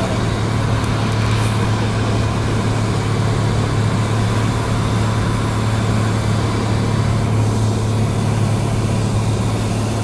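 Cessna 172's piston engine and propeller running steadily in flight, heard inside the cabin as a constant low drone with a strong steady hum and airflow noise.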